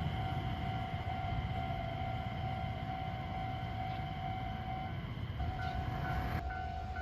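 A train running with a steady rumble and a steady whine. Near the end a short higher tone starts repeating about twice a second.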